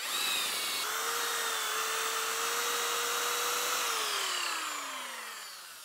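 Corded impact drill with a 12 mm bit boring into a timber fence post: the motor runs at a steady whine for nearly four seconds, then winds down with a falling pitch as it is let off.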